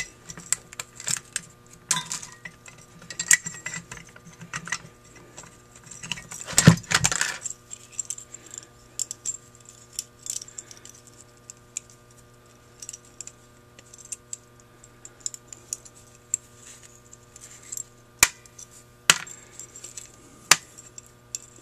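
Metal parts of a Holley 1904 one-barrel carburetor clicking and clinking as they are handled and taken apart by hand. The loudest clatter comes about seven seconds in, and a few sharp clicks near the end, over a faint steady hum.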